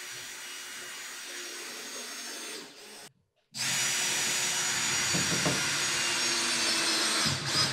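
Cordless drill/driver driving wood screws through a metal table leg's foot plate into a hard maple tabletop: a steady motor whine for a little under three seconds, a brief stop, then a second, louder run of about four seconds.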